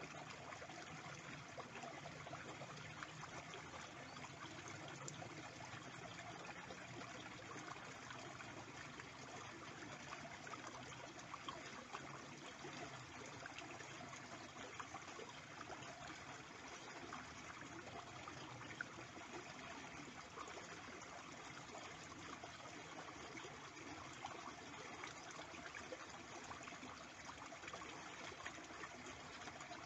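Shallow stream running and trickling steadily over its muddy bed.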